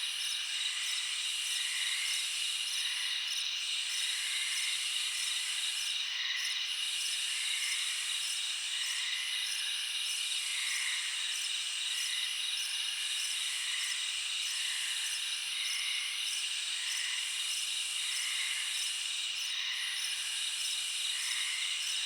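Summer-night insect chorus: crickets trilling steadily and high-pitched, with a higher buzzing call that comes in repeated bursts of a second or two. Softer chirps sound about once a second beneath them.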